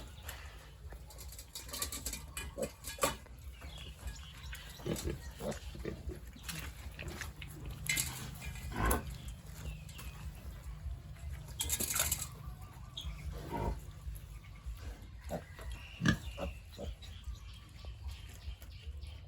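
Pigs in a farrowing pen grunting, with scattered short knocks and clatter over a steady low hum.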